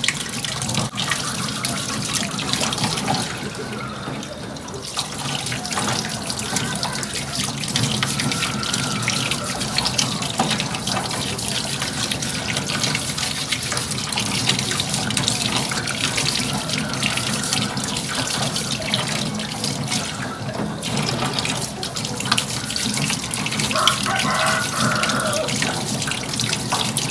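Kitchen tap running steadily into a stainless steel sink, the stream splashing over eggs being scrubbed by hand beneath it. The splashing thins out briefly twice, a few seconds in and again past the middle.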